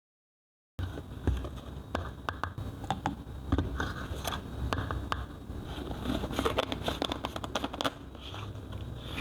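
Things being handled up close: a quick run of small clicks, taps and scrapes with some crinkling, starting abruptly under a second in.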